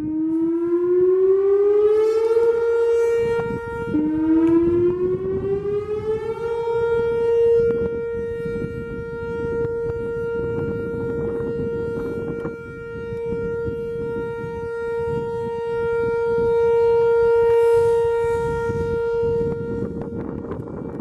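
Whelen Vortex R4 electronic outdoor warning siren sounding a short alert. Its tone rises in pitch, drops back about four seconds in and rises again, then holds one steady pitch. The tone is buzzy, which the uploader puts down to the siren's drivers sounding bad.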